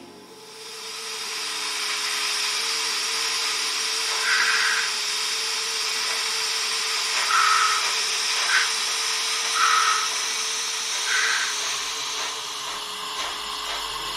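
Standing HO scale DRG Class 78 steam locomotive model (ESU 31183) with its steam sound and smoke generator running: a steady steam hiss over a low hum, with several short louder hisses a second or few apart.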